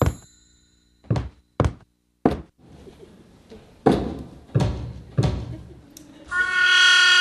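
A series of sharp, echoing knocks: one at the start, three in quick succession, then three more spaced about two-thirds of a second apart. Near the end comes a held note with many overtones.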